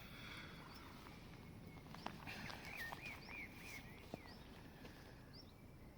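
Faint bird calls: a quick run of four or five rising-and-falling chirps about two seconds in, then single short, high chirps every second or so, over quiet outdoor background noise. Two light clicks.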